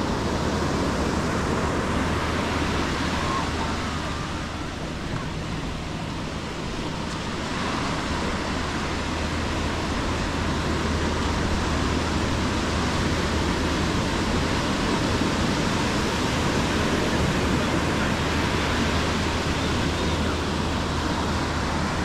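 Small waves breaking and washing up a sandy beach: a steady rushing surf that dips briefly about five seconds in.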